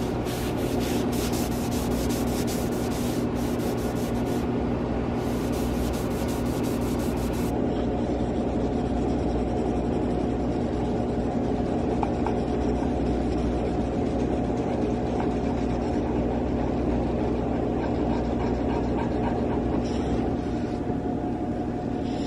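Paper towel rubbed briskly back and forth over a spruce-pine-fir board, scrubbing off a price sticker and its residue. Quick strokes run through the first seven seconds or so and come back briefly near the end, over a steady low hum.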